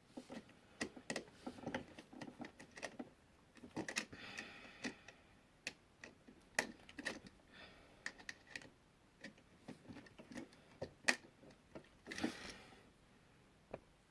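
Irregular small clicks and taps of hand work on the outlet's wiring: tools, wires and the receptacle being handled, with a couple of brief rustles.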